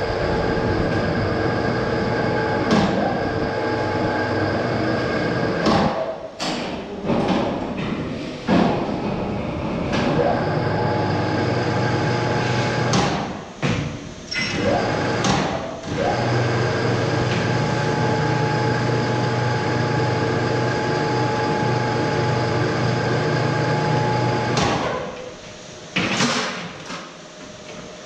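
Electric overhead crane motor running with a steady whine. It stops and restarts several times, rising in pitch each time it starts, and sharp metallic clanks of steel plate come in the pauses.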